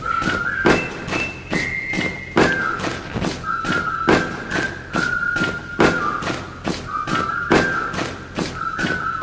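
Dance song playing: a steady beat with a high, whistle-like melody of held notes over it.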